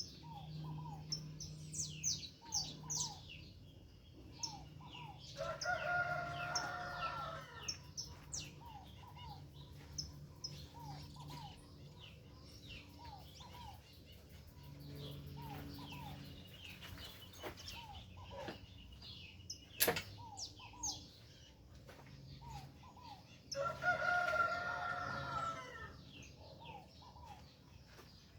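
Songbirds chirping and singing steadily, while a rooster crows twice, once early and once near the end. A low steady hum runs underneath, and there is one sharp click.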